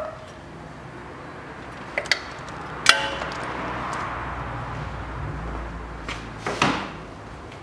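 Metal clinks from working under the car: a couple of light clicks, then a sharp metallic clink that rings briefly about three seconds in. A short whoosh follows near the end.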